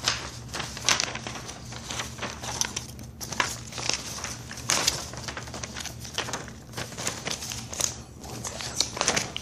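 Close handling noise: irregular paper rustling and crinkling with scattered sharp clicks as sheets are handled and the phone is moved about, over a steady low hum.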